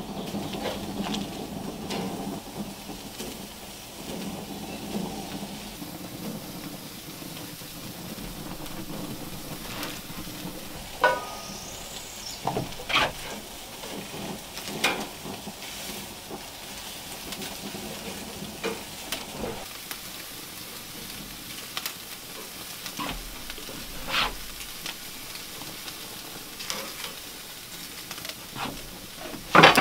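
Sausages sizzling on a steel mesh grill grate, a steady hiss broken by occasional sharp clicks and knocks as they are laid down and handled; the loudest knock comes near the end.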